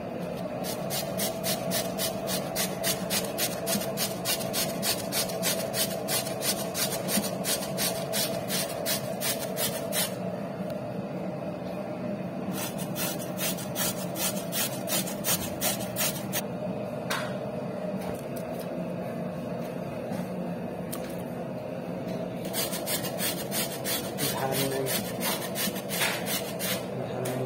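Peeled raw potato grated on a stainless-steel box grater: quick rasping strokes, about two or three a second, in three runs with pauses of a few seconds between them.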